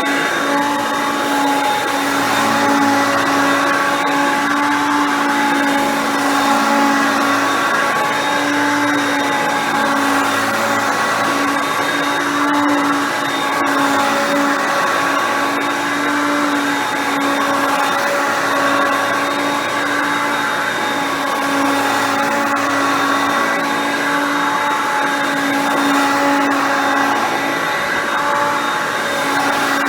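Hoover Concept Two upright vacuum cleaner, with its 5.6-amp motor, running steadily: a constant motor whine over rushing airflow, swelling and easing a little in loudness.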